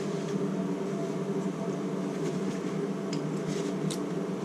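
A steady machine hum with an even pitch, with a few faint light clicks of small metal parts being handled near the end.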